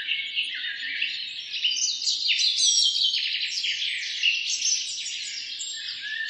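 Several songbirds singing at once: a dense chorus of overlapping high chirps, trills and whistled notes.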